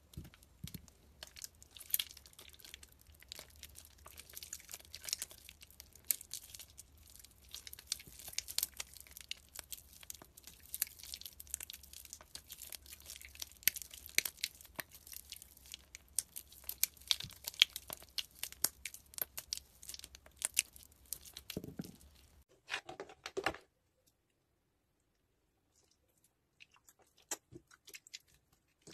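Wet, water-soaked soap bars being squeezed and crumbled in the hands, with dense crackling and squishing for about twenty-two seconds before it stops. After a short gap of near silence, sparser crackles of more soaked soap being crushed come in near the end.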